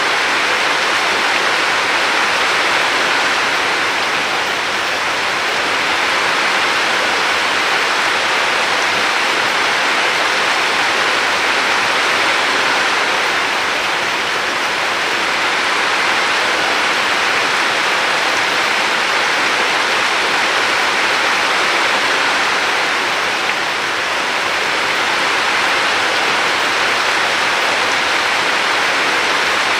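Flowing river water, a steady rushing wash with gentle swells and dips in loudness every nine seconds or so.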